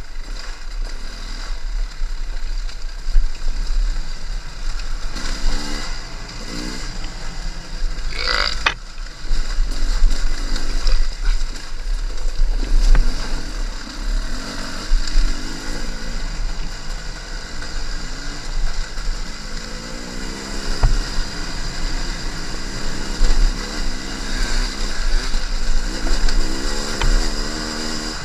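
Beta RR 300 two-stroke enduro motorcycle riding over rough terrain, its engine revving up and falling back again and again, with several rising revs in the second half. A brief sharp higher sound comes about eight seconds in.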